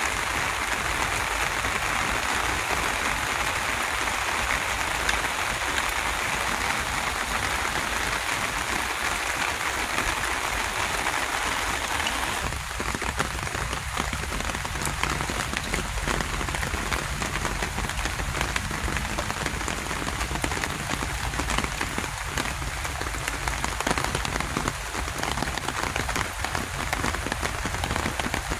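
Steady rain falling: a constant hiss with many single drops ticking. About twelve seconds in the hiss thins and the separate drops stand out more.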